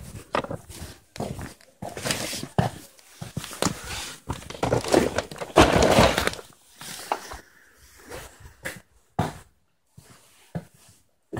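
Rummaging through a pile of cardboard boxes and household items: irregular knocks, thuds and cardboard rustling, densest about halfway through, then a few scattered knocks.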